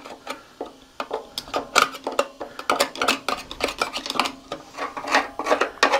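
Screwdriver scraping and clinking against a lawnmower engine's housing while caked grass and dirt are picked out from around the cooling fins: a quick, irregular run of scrapes and taps.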